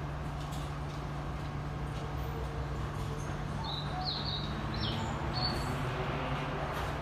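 A few short, high bird chirps about four to five seconds in, over a steady low hum.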